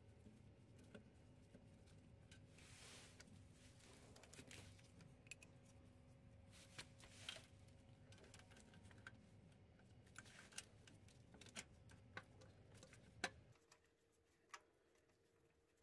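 Faint, scattered metallic clicks and taps from a socket on an extension as the starter mounting bolts are threaded in by hand, with the sharpest click near the end.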